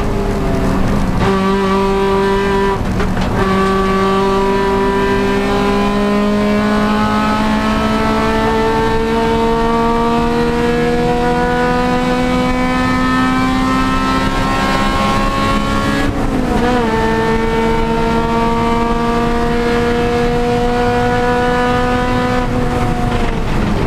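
Honda Civic Si race car's four-cylinder engine pulling hard, its pitch climbing steadily, with an upshift about sixteen seconds in. The pitch falls off near the end as the car slows.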